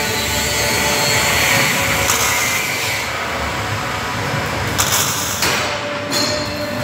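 Electric hand tool working steel: a steady, noisy running sound with a faint whine, and short louder surges a couple of times.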